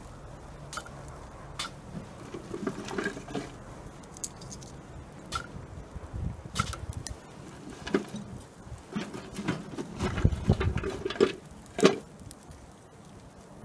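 Small wood fire burning in a perforated twig stove, crackling with irregular sharp pops. A low rumble joins in about two-thirds through, and the loudest pop comes near the end.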